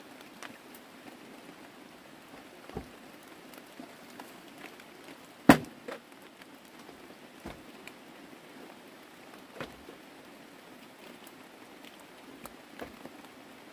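Steady rain hiss and patter, broken by scattered short knocks and taps as a wooden stick works against wood and stones; one sharp knock, much louder than the rest, comes about five and a half seconds in.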